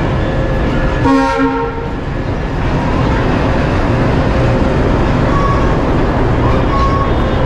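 Indian Railways diesel locomotive pulling into the platform. It gives a short horn blast, broken in two, about a second in, then its engine and wheels run steadily as it passes close by.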